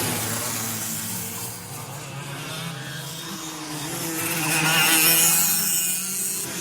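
Go-kart engines running past on a track, fading down about two seconds in, then rising again to a loud pass at about five seconds before falling away. Their buzzing pitch shifts up and down as the karts pass.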